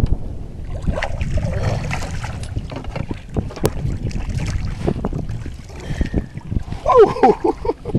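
Wind buffeting the microphone and water splashing as a hooked fish is scooped into a landing net beside a boat, with knocks of handling throughout. About seven seconds in, a person's voice calls out briefly in a wavering tone.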